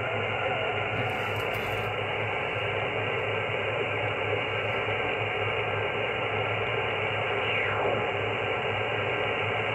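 Yaesu FT-901DM transceiver's speaker giving steady band-noise hiss on 10-metre sideband as the main tuning dial is turned up the band. About eight seconds in, a falling whistle sweeps down as the tuning passes across a signal.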